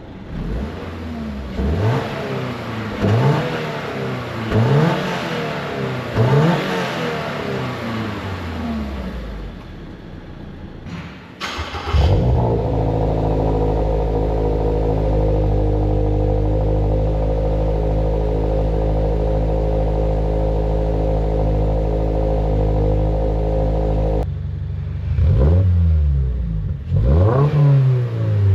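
Toyota GR86's 2.4-litre flat-four engine revved through its exhaust in a series of quick blips, each rising and falling. About twelve seconds in, the engine holds a steady high rev for roughly twelve seconds, which cuts off suddenly, and then the quick rev blips resume.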